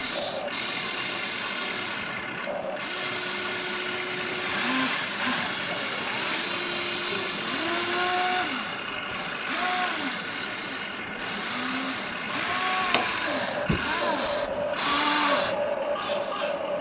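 Huina 1594 RC excavator's small electric motors and plastic gearboxes whining as the model works: short glides in pitch rising and falling again and again over a steady gritty hiss that breaks off briefly several times.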